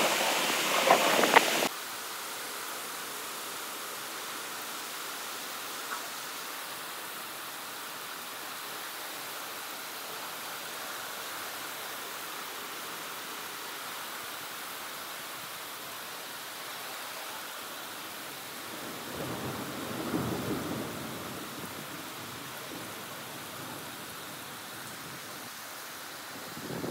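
Heavy rain in a thunderstorm: loud with sharp spatters for the first second or two, then dropping abruptly to a steady hiss. About twenty seconds in, thunder rumbles low for a couple of seconds.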